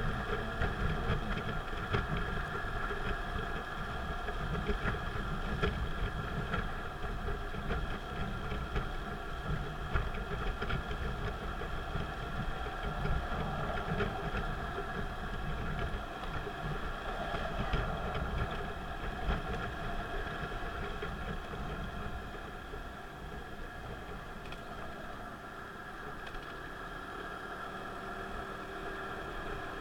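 Steady engine and tyre noise of a car cruising on an expressway, heard from inside the cabin: a continuous low rumble with a faint steady hum above it.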